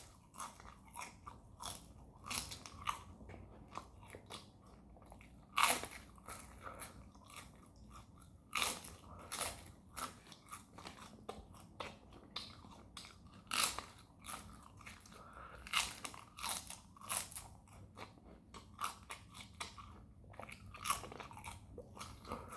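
Close-up chewing of a crunchy dried fish snack: irregular crisp crunches and bites with quieter chewing between them.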